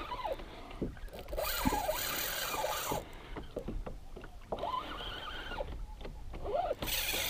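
Water lapping against a plastic kayak hull while a spinning reel is worked to play a small hooked blackfin tuna, with a few short rising-and-falling whines and a brighter hiss for a couple of seconds starting about a second in.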